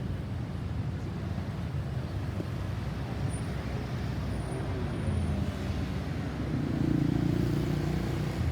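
Road traffic: motor vehicle engines running and passing in a steady low rumble, with one engine growing louder near the end. No siren is sounding.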